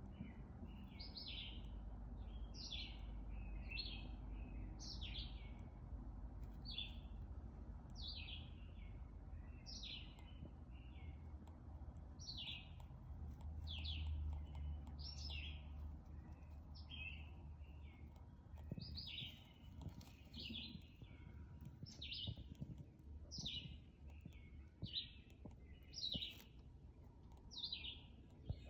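A bird chirping over and over: short, high chirps that drop in pitch, about one a second, over a faint low rumble.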